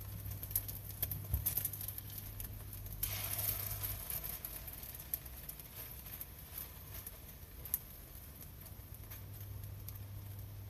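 Corned beef and instant-noodle pancakes frying in shallow oil in a nonstick pan, crackling and spitting, with a short surge of sizzling about three seconds in as the silicone spatula presses and turns them.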